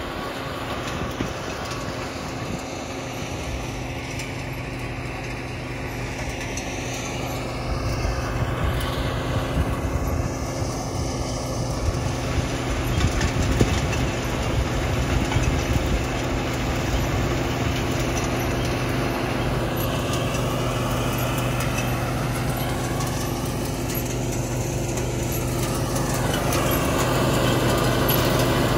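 A running vehicle: a steady rumble with a low hum, gradually growing louder.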